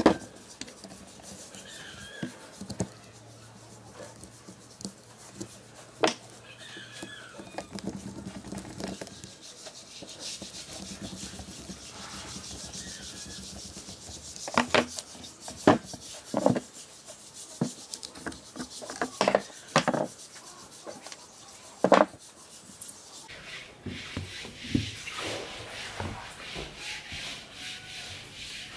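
Metal parts of an old electric fan motor being handled by gloved hands: rubbing and scraping with scattered clicks and knocks against each other and the wooden bench, a run of sharper knocks in the second half.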